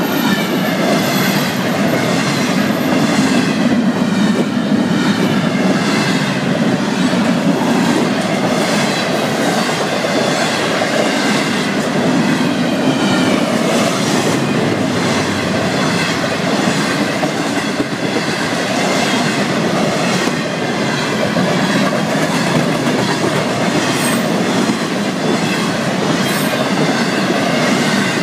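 Florida East Coast Railway freight train's cars rolling past, a steady loud rumble of steel wheels on rail with a regular clickety-clack from the wheels crossing rail joints.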